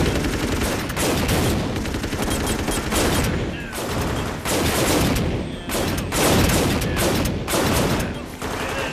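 Dense, rapid gunfire from many handguns and rifles firing at once, a continuous fusillade that drops off briefly a few times.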